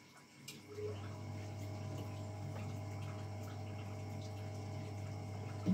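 Small electric brewing pump switched on: a faint click, then from about a second in a steady, even hum as it pumps wort through the hoses.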